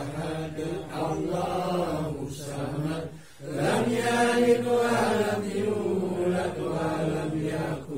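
A group of men chanting Islamic prayers together in Arabic in long, drawn-out phrases, with a short break for breath a little over three seconds in.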